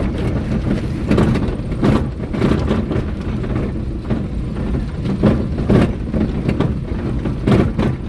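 Vehicle driving slowly over an unpaved dirt farm road: a steady low rumble broken by irregular knocks and rattles as it goes over bumps.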